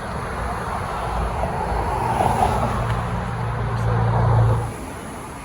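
A road vehicle driving past, its engine hum and road noise building up and then dropping off sharply about four and a half seconds in.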